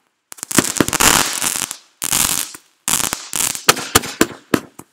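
Ground fireworks fountain spraying sparks, a hissing crackle with many sharp pops, in several bursts that break off abruptly into short silences.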